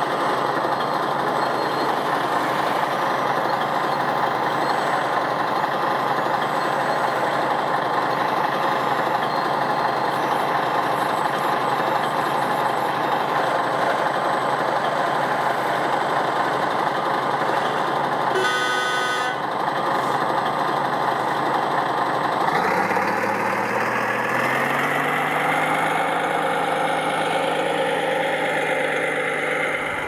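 Radio-controlled scale construction machines running with a steady, diesel-like engine sound. A short horn beep comes about two-thirds of the way in. Soon after, the engine sound revs up and holds at a higher pitch.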